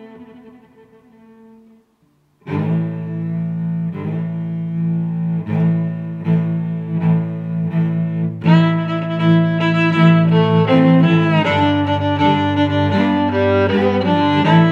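Instrumental background music with low sustained notes. One passage fades out, there is a brief silence about two seconds in, then a new passage starts with repeated low notes and grows fuller and louder about eight seconds in.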